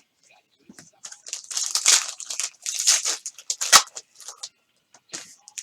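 A trading card pack wrapper being crinkled and torn open by hand, in a run of rustling tearing strokes that is loudest near the middle.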